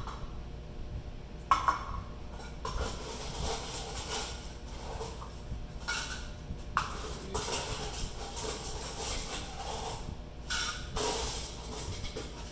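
Ice being scooped from a steel ice bucket into two cups: rattling, clattering cubes in several bouts, with a couple of sharp clinks about a second and a half in.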